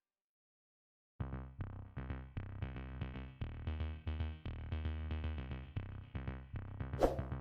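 Silence for about a second, then electronic background music starts, with a steady beat and a heavy bass line. A short swish sounds near the end.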